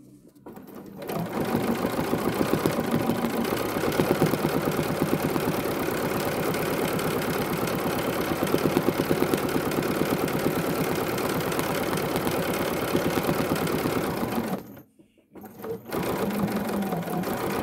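Bernina sewing machine stitching fast in free-motion quilting (thread painting), with a rapid, even needle rhythm. It starts about a second in, stops briefly near the end, then starts again.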